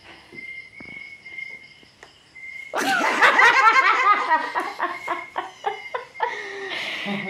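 A young child crying: a loud wavering wail breaks out about three seconds in, then goes on in short sobbing catches.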